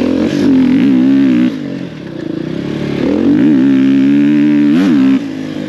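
Dirt bike engine revving under throttle, its pitch rising and falling in two long bursts, each cut off sharply as the throttle is shut: once about a second and a half in, again near the end.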